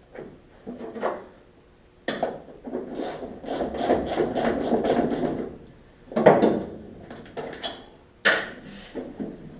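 Hand tools and metal parts clanking and knocking while a 1970 Chevy Nova's trunk lid is being taken off. In the middle comes a run of quick, even clicking, and a couple of sharper knocks follow.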